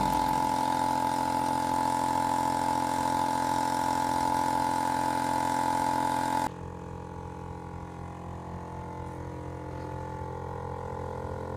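Ryobi air compressor running loudly and steadily. About six and a half seconds in, it cuts to the same compressor closed inside an acoustic enclosure: much quieter and muffled, with most of the high end gone.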